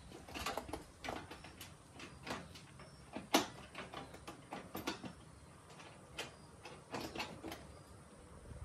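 Scattered light clicks, knocks and rustling as the Agri-Fab lawn sweeper's fabric hopper and its frame rods are handled during assembly, with one sharper click a little over three seconds in.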